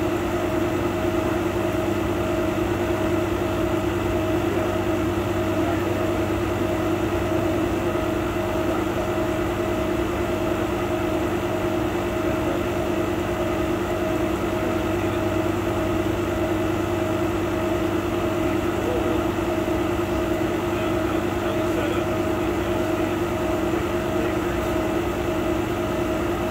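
A 100-watt CO2 laser cutter at work cutting MDF sheet: a steady machine hum with several constant tones that doesn't change.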